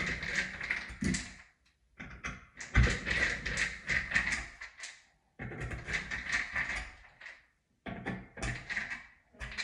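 Handling noises of metal and plastic parts being scraped and clicked at a Delta shower valve as the cartridge and stem are worked by hand. The noise comes in several bursts that break off suddenly into silence.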